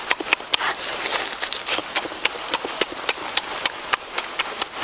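Close-up eating sounds of a person chewing and sucking on cooked octopus: irregular wet smacks and clicks of the mouth, several a second.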